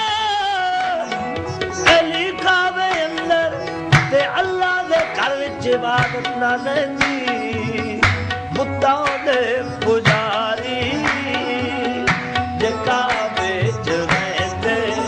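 Qawwali music: a male singing voice over sustained harmonium chords, with tabla beats cutting through, the strongest strokes falling about every two seconds.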